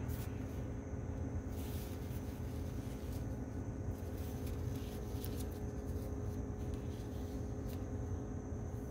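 Faint rustling of paper towel and light clicks of small metal vape tank parts being wiped dry by hand, over a steady low hum.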